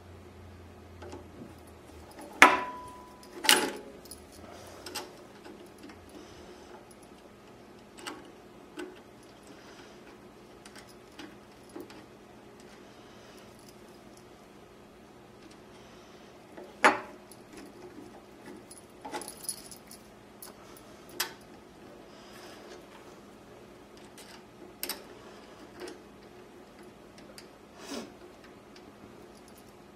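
Scattered sharp metallic clicks and clinks of a screwdriver and small steel parts at a Cowboy CB3200 leather sewing machine's rotary hook as its mounting screws are driven back in. The loudest comes about two and a half seconds in and rings briefly.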